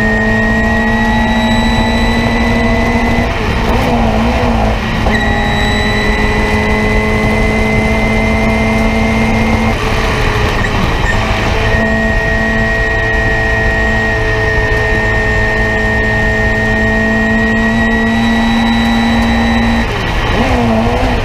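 Race-prepared Nissan Sentra's engine heard from inside the cabin, running hard at high revs with its pitch creeping slowly upward as the car accelerates, over loud road and wind noise. The note breaks up briefly three times: about four seconds in, around ten seconds in, and just before the end.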